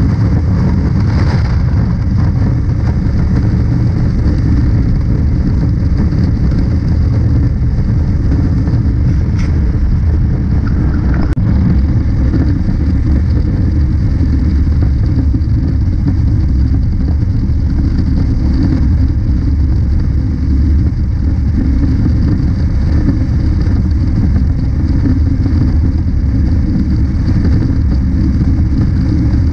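Honda CB500X parallel-twin motorcycle cruising at highway speed: steady wind rush over the microphone with the engine's drone beneath it, holding an even pace with no gear changes.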